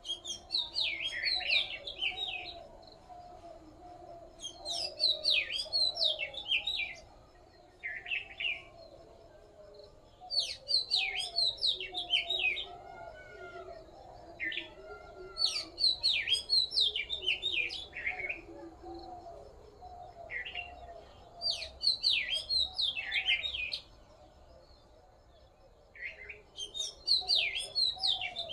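A songbird singing in repeated bursts of rapid, high chirping notes, each phrase lasting two to three seconds with a short pause between, about six times. A fainter, lower chattering runs steadily underneath.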